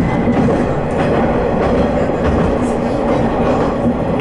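Haimo 330 diesel railcar under way, heard from inside the car: a steady engine drone mixed with wheel noise on the rails and a few clicks over rail joints.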